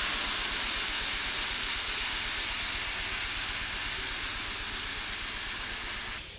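Pressure washer spraying a driveway: a steady hiss of water jet over a fast, low engine pulse.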